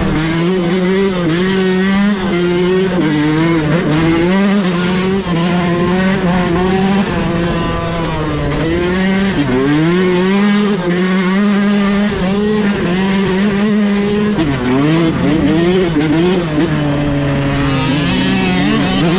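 Yamaha dirt bike engine being ridden hard, its pitch climbing and falling with the throttle and gear changes, with several short drops where the throttle is rolled off.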